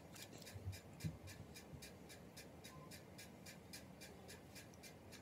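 Near silence with a faint, quick, even ticking, about four or five ticks a second. Two soft knocks come about half a second and a second in, as makeup is handled.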